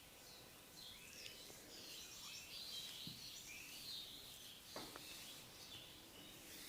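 Faint bird chirping, short high twittering notes, with a single soft knock a little before five seconds.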